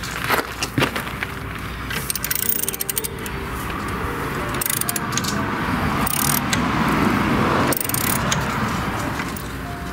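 Socket ratchet on the rear hub nut of a 2002 Ford Focus clicking in several short runs as it is worked back and forth. The nut is seized and won't break loose even with a cheater bar.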